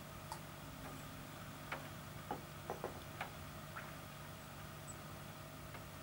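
A handful of short, sharp ticks, clustered from about two to four seconds in, over a steady low hum.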